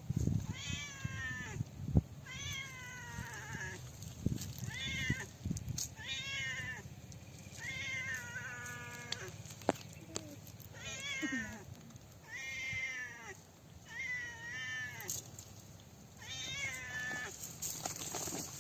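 An animal calling over and over: about a dozen short, high-pitched calls, each bending in pitch, coming roughly every second or so.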